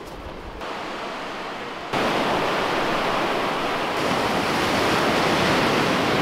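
Sea surf washing and breaking on a sandy beach, a steady rushing wash that jumps louder about two seconds in.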